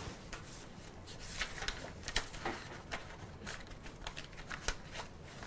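Handwriting: faint, irregular scratching strokes of a pen or marker across a writing surface.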